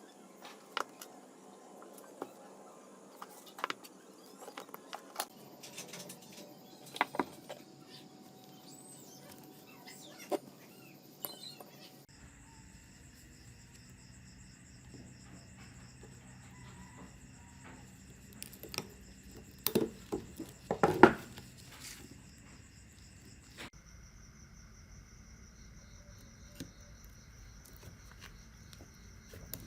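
Scattered sharp clicks and knocks of hand-tool work, with a cluster of louder knocks about two-thirds of the way through, over faint steady high-pitched tones; the background changes abruptly a few times.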